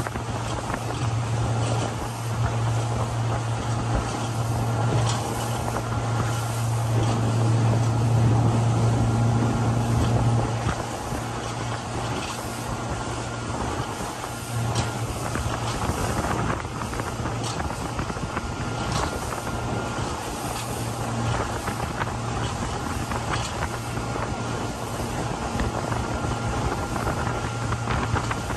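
50 hp Yamaha outboard motor running slowly with a steady low hum, easing back a little about ten seconds in. Wind buffets the microphone.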